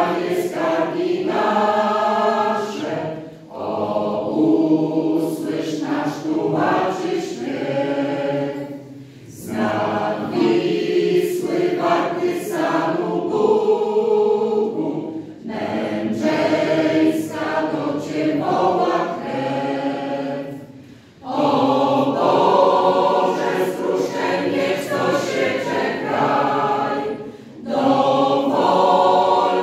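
Mixed choir of women's and men's voices singing in phrases of about six seconds, each followed by a brief pause for breath.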